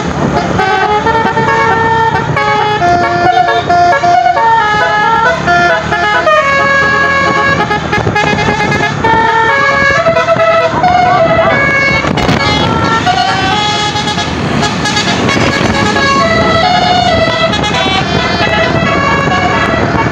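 Tour bus 'telolet basuri' multi-tone musical air horn playing a melody: a run of held horn notes that step up and down several times a second, over the bus's running engine.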